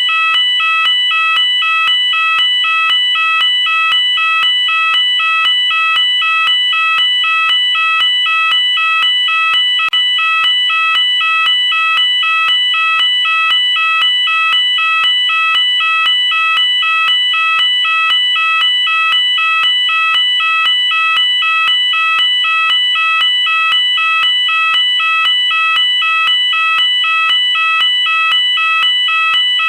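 UK-style electronic fire alarm sounder going off continuously: a loud, steady two-tone warble, switching rapidly back and forth between two pitches without a break.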